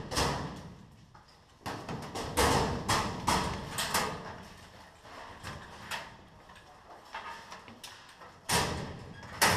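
Irregular knocks and clatter of hard objects: a quick run of them a couple of seconds in, fainter ones after, and two sharper knocks near the end.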